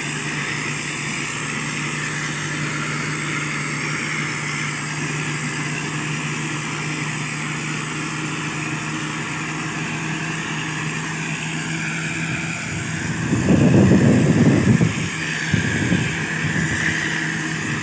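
Motor grader's diesel engine running steadily as the machine drives on a dirt track, with a wavering high whine above the engine note. About thirteen seconds in, a loud rush of low noise lasts for a couple of seconds, and a shorter one follows.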